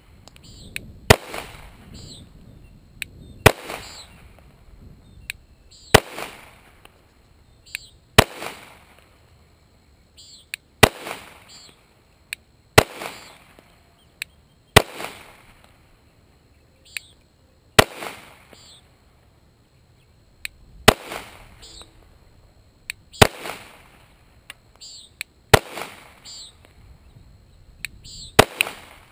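Slow, deliberate pistol fire from a 9mm Glock, about a dozen single shots spaced two to three seconds apart, each a sharp crack with a short echo tail.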